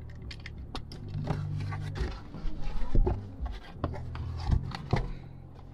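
Cardboard shipping box being opened by hand: the flaps are pulled back, with cardboard scraping and rustling and several sharp knocks and taps as the box is handled.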